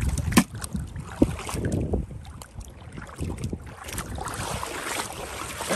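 Footsteps sloshing through shallow water over a muddy, shell-strewn flat, with a low rumble of wind on the microphone. A sharp knock comes about half a second in as a shell is dropped into a plastic bucket, and a second knock follows a moment later.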